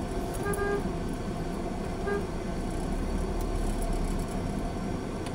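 Vehicle horn tooting twice, briefly about half a second in and again more shortly about two seconds in, over the steady low running noise of a car moving slowly in street traffic, heard from inside the car.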